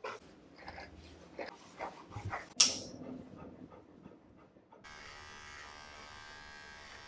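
A slicker brush swept in short strokes through a dog's fur, then a sharp click about two and a half seconds in. From about five seconds a small electric paw trimmer runs with a steady buzz as it clips the fur between the paw pads.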